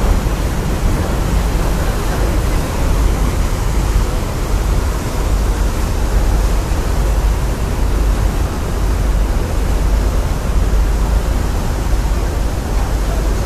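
Steady, loud rushing noise with a deep, wavering rumble underneath, on the open deck of the Blue Star Ithaki car ferry as it manoeuvres alongside the quay: wind on the microphone mixed with the ship's engines.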